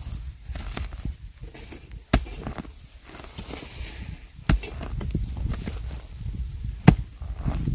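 Three sharp strikes of a bladed hand tool, about two and a half seconds apart, with rustling and scraping between them: bamboo shoots being dug out.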